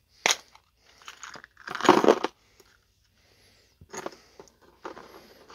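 Clear plastic packaging crinkling and rustling as small drone electronics boards are handled and unpacked, with a few sharp clicks of the boards being set down on a cardboard box. The loudest rustle comes about two seconds in.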